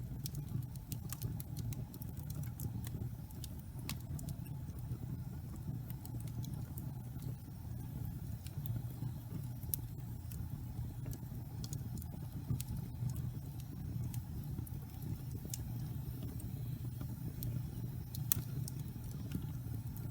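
Wood fire burning in a fireplace: a steady low rumble of the flames with scattered sharp crackles and pops from the burning logs, a few of them louder than the rest.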